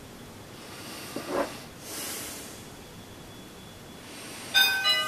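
A two-tone doorbell chime rings near the end: a higher tone, then a lower one a moment later, both ringing on. Before it, a faint hiss and a light knock as pancake batter is spooned from the bowl into the hot pan.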